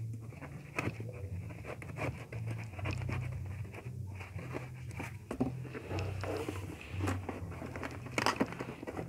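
Cardboard box being opened by hand: scraping, rustling and crinkling of the cardboard flaps and seal label, with scattered short knocks, loudest about eight seconds in.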